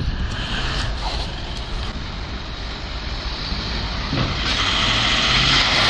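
Large SUV's engine revving with its tyres spinning in mud, the vehicle stuck; the spinning hiss swells louder about four and a half seconds in.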